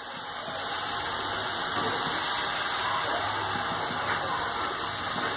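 Steady hiss of onion-tomato masala frying in oil in a steel kadhai on a gas stove, with a faint low hum coming and going.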